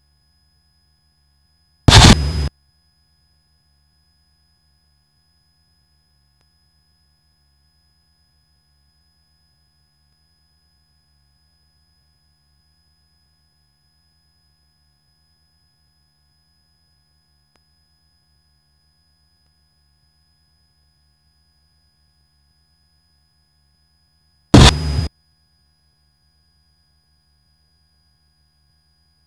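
Near silence on a Cessna 172's cockpit intercom audio feed, with a faint steady hum and a thin high tone. A short, loud burst of noise breaks in twice, about two seconds in and again near the end.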